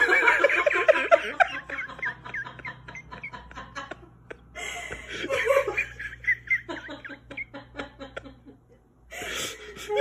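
A person laughing in fits: bursts of high, breathy giggling that die down about four seconds in and again near the end before starting up once more.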